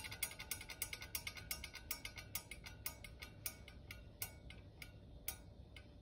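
Antique Zero desk fan spinning down, with a metallic tick on each turn. The ticks slow from about six a second to about one a second and die away about five seconds in.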